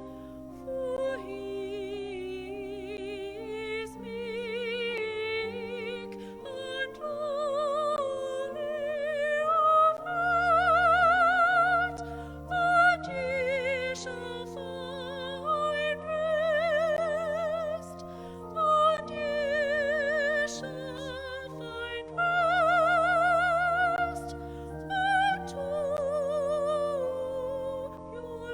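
A solo soprano singing a sacred song in a classical, operatic style with wide vibrato, over sustained keyboard accompaniment. The voice rises and falls in long phrases.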